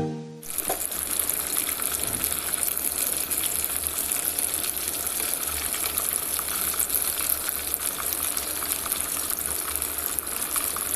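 Chicken pieces deep-frying in hot oil: a steady crackling sizzle that starts about half a second in.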